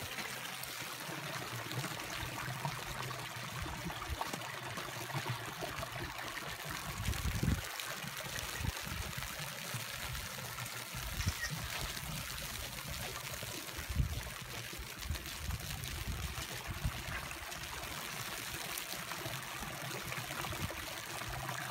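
Steady trickle and patter of water from wet, thawing snow, with a few low rumbles of wind on the microphone.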